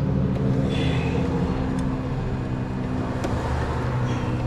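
A car engine idling steadily in a low, even drone, with a couple of faint clicks.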